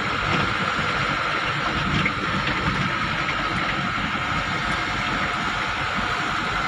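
Steady engine and road noise of a moving vehicle, with a thin, steady whine on top.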